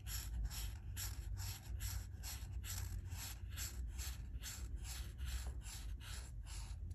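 Alcohol marker tip stroking back and forth across a colouring page, a scratchy rhythmic scrubbing of about three strokes a second.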